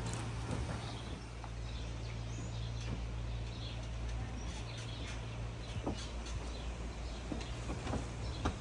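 Outdoor ambience: faint bird chirps over a steady low hum, with a few scattered light knocks.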